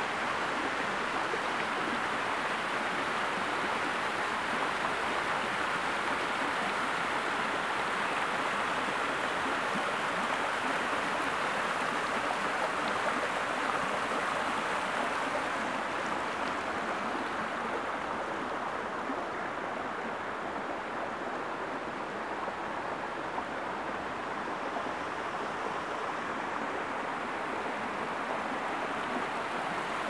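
Water of a partly frozen waterfall rushing steadily, an even hiss that turns a little duller and softer about halfway through.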